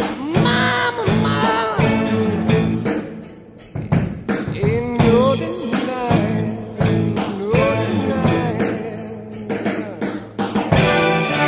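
Background rock music: a singing voice over a drum kit.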